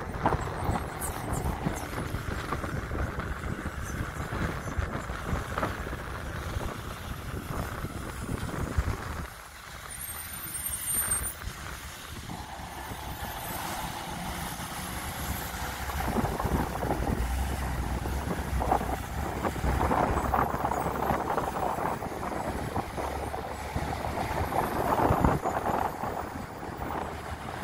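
Heavy trucks on a highway: engine drone and tyre noise, with a short lull about nine seconds in and a steadier low engine drone from about sixteen seconds in.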